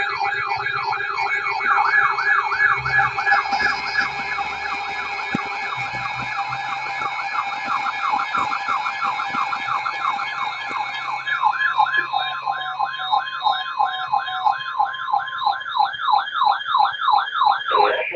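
Electronic siren in a fast yelp, its pitch sweeping up and down about three times a second over steady tones. It cuts off suddenly near the end.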